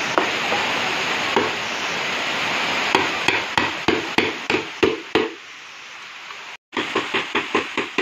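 Hammer driving screws into staves of areca palm wood: short, sharp taps about four a second, in two quick runs separated by a short break. A steady hiss fills the first few seconds, before the taps begin.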